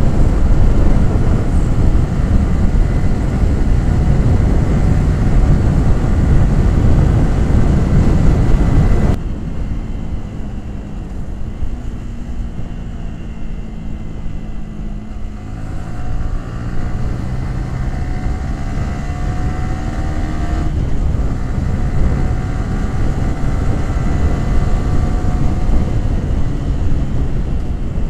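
Yamaha R15 V3's single-cylinder 155 cc engine and exhaust on the move: loud wind rush over the engine for about nine seconds, then the rush drops away suddenly and the engine note is heard plainly, rising steadily as the bike accelerates in the second half.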